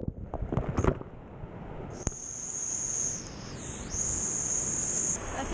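Whitewater rapids rushing and splashing around a kayak, close to a boat-mounted camera. In the first second there is a run of splashes, and the sound is dulled while water washes over the camera. From about two seconds in, a steady high hiss of rushing water takes over.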